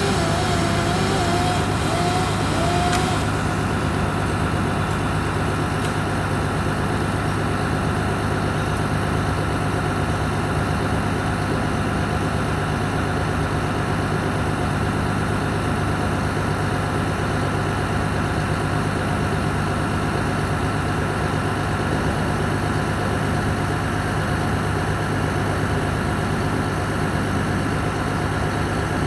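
Mobile crane's diesel engine running steadily at idle, a constant low hum. A brief wavering sound sits over it in the first three seconds.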